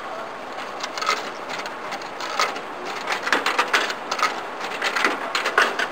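Coins being fed into a Japanese drink vending machine's coin slot, clinking and clattering through the coin mechanism. The clinks come irregularly from about a second in, more thickly in the second half.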